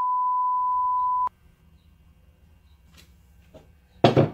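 A steady 1 kHz test-tone beep of the kind played with colour bars, cutting off sharply about a second in. Near the end comes a short, loud rub of a gloved hand moving metal parts across a wooden bench top.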